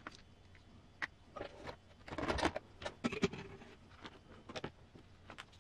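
Small plastic transmission housing parts and bearings being handled and pressed together: scattered clicks and taps with some scraping, busiest about two to three seconds in.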